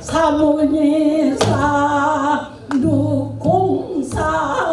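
An elderly woman singing pansori. She holds long notes with a wide, wavering vibrato in phrases of about a second or more, each broken by a short breath.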